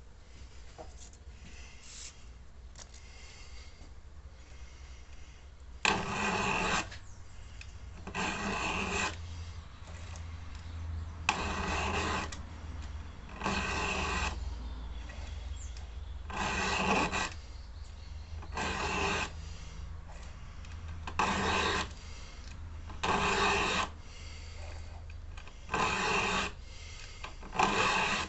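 A round file rasping along a chainsaw chain's cutters to sharpen them: faint light strokes at first, then about ten firm file strokes, each about a second long, one every two to three seconds.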